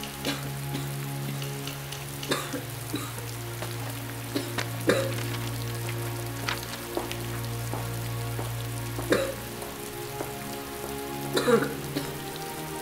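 Steady rain falling, with louder drips and splashes at irregular moments, over soft sustained background music.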